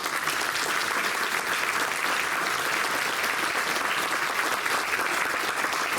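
Audience applauding steadily in a council chamber, breaking out right at the start and keeping up throughout.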